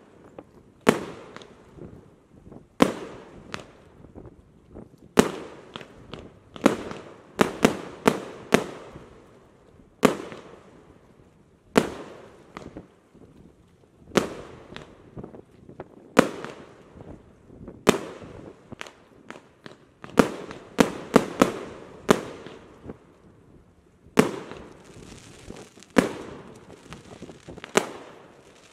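A 50-shot, 1.2-inch fireworks cake (Kometa P7711 Atomówka) firing its shots one after another: sharp bangs every second or two, some in quick runs of two or three. Near the end one burst leaves a hiss lasting a couple of seconds.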